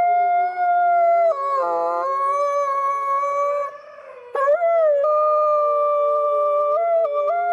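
A man howling like a wolf in a high falsetto, holding long notes that step up and down in pitch, with a brief break for breath about four seconds in.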